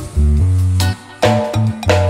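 Background music with a bass line and drum hits, briefly dropping out about a second in.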